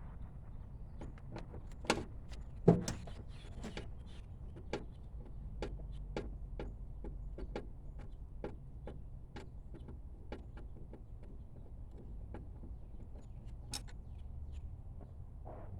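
Light clicks and small knocks from hand tools and door parts being worked while removing a car's interior door handle, with two sharper knocks a little over two seconds in, over a low steady hum.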